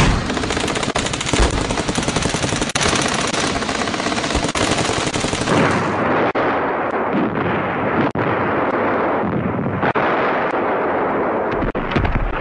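Sustained gunfire, a dense, continuous crackle of rapid shots like automatic weapons. About halfway through it turns duller and separate louder shots stand out.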